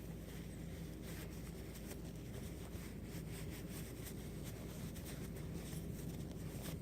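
Faint, irregular rustling and rubbing of a paper towel wiping carbon fouling off a steel AR-15 bolt carrier group, over a low steady room hum.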